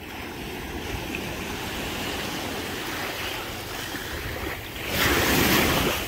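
Small Atlantic surf washing along the beach, with wind buffeting the microphone; a louder rush of about a second comes near the end.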